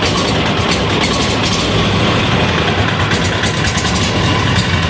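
186FA single-cylinder air-cooled diesel engine running steadily on diesel fuel, loud, with a fast rhythmic clatter.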